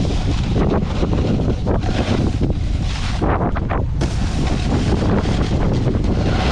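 Wind buffeting the microphone of a camera carried by a snowboarder riding downhill: a loud, gusting low rumble, mixed with the hiss and scrape of the snowboard sliding and turning on snow.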